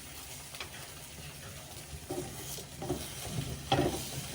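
Egg being stirred in a frying pan: a utensil scraping and tapping against the pan, with a few louder knocks near the end.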